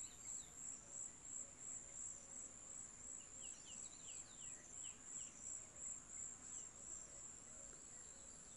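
Faint, steady high-pitched trill of insects such as crickets, pulsing slightly, with a few short falling chirps scattered over it.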